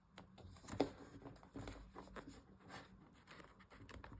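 Faint handling sounds of paper and washi tape: soft rustles and a few light taps as fingers press the tape down onto the journal pages, with one sharper tap about a second in.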